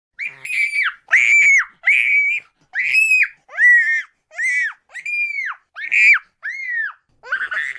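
A rapid series of short, high-pitched shrieks, about a dozen in quick succession, each rising and then falling in pitch.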